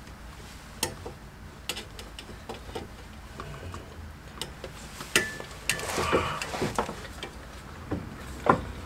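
Tools and metal parts being handled in a workshop: scattered clicks and knocks, with a short clatter about six seconds in and a sharp knock near the end.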